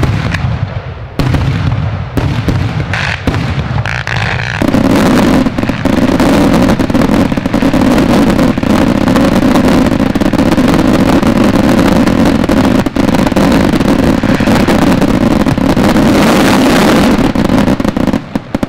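Fireworks: aerial shells bursting with separate loud bangs, then from about five seconds in a dense, continuous barrage of rapid bangs and crackling that stops just before the end.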